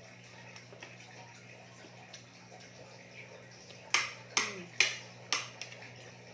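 Metal cutlery clinking against dinner plates: four sharp clinks in quick succession about four seconds in, over a low steady hum.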